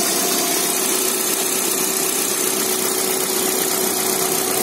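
Car engine idling steadily, heard close up in the open engine bay: an even running noise with a thin steady tone over it.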